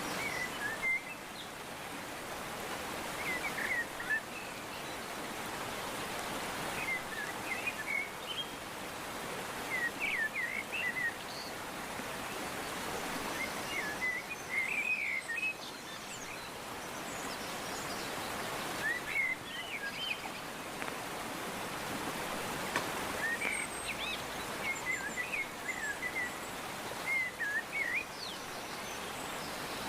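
Birds chirping in short groups of quick calls every few seconds, over a steady outdoor hiss.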